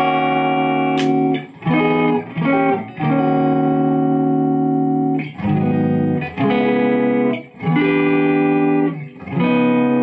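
Custom-built Telecaster-style electric guitar playing chords, each struck and left to ring for a second or two, with brief gaps between changes. Its tone capacitor is a paper-in-oil type, which takes a little of the sharpness off the sound.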